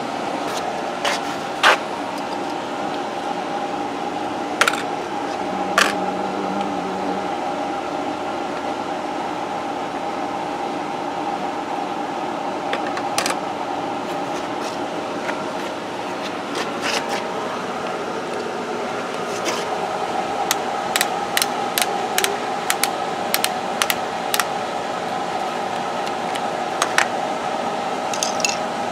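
Plastic toy tool pieces clicking and clacking as they are handled: a few clicks in the first six seconds, then a quick run of them from about twenty seconds in. Under them runs a steady machine hum with several held tones.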